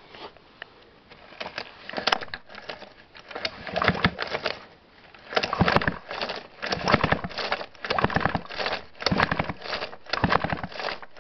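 Ural-2 Elektron two-stroke chainsaw engine cranked over by about eight pulls of its starter cord, one every second or so, without firing. It is a spark test: no spark shows at the plug, which the owner takes for a dead ignition coil.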